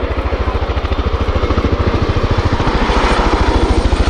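RAF Chinook twin-rotor helicopter passing low, its two rotors beating out a rapid, even blade slap that grows louder as it comes closer. A faint high whine joins in near the end.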